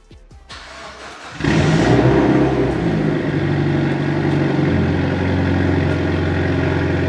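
A vehicle engine cranks and catches about a second and a half in, flaring briefly and then running steadily.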